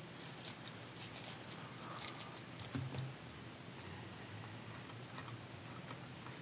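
Trading cards being handled and swapped: a quick cluster of faint clicks and light scrapes in the first three seconds, then only the odd tick.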